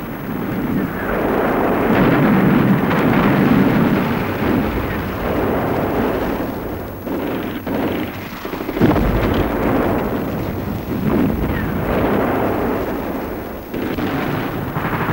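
Battle sounds: a continuous rumbling din of artillery fire and shell explosions, with a heavy blast about nine seconds in.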